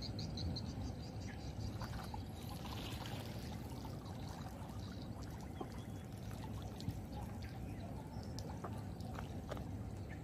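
Water trickling and dripping at the pond's edge over a steady low rumble, with a quick run of high ticks at the start and a few light clicks later.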